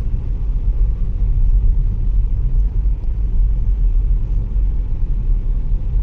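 Steady low rumble of road and engine noise inside a moving car's cabin.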